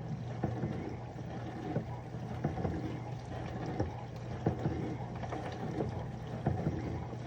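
Mini countertop dishwasher washing: a steady low pump hum under water spraying from its rotating spray arms and splashing irregularly inside the tub.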